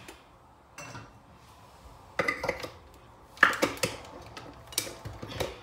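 Kitchen dishes and utensils clattering: a string of sharp clinks and knocks, the loudest a little past halfway through.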